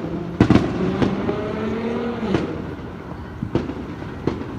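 Firecrackers going off: about seven sharp, separate bangs, two close together about half a second in and the rest scattered a second or so apart. Under the first half runs a pitched drone that rises slightly and stops about two and a half seconds in.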